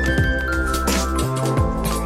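Background music with a steady beat over held tones and a deep bass.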